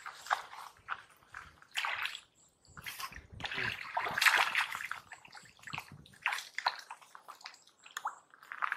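Shallow muddy water sloshing and splashing as a person works hands in it and wades through it, in irregular bursts, the longest and loudest about four seconds in.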